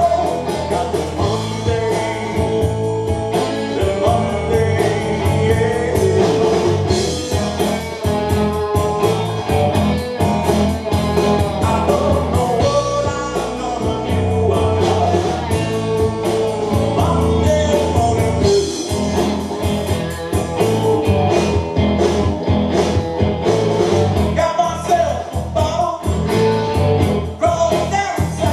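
Live rock band playing: electric and acoustic guitars, bass and drums, with a man singing lead.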